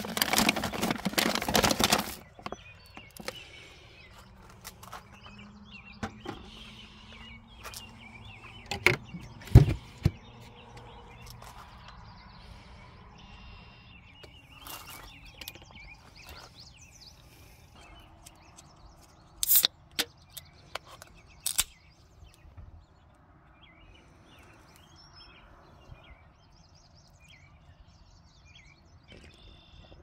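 Plastic food packaging crinkling and rustling as packets are moved in a car fridge for about the first two seconds, then quiet outdoor ambience with faint bird chirps and a few sharp knocks and clicks, the loudest about ten seconds in.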